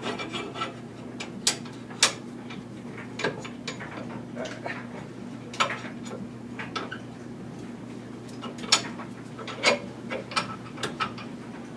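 Irregular metallic clicks and clinks of hand tools working on a truck's rear leaf-spring suspension, with a few sharper knocks spread through.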